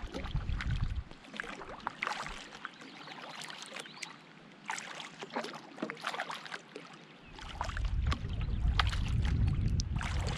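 Canoe paddle strokes: water splashing and dripping off the blade in a run of short splashes. A low rumble sits under them in the first second and again from about seven seconds in.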